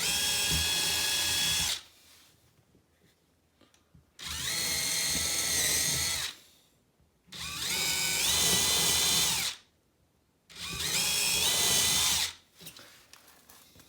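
Power drill boring holes through plasterboard at the corners of a marked socket box outline. It runs in four separate bursts of about two seconds each, its motor whine shifting in pitch as the speed varies, with short pauses between holes.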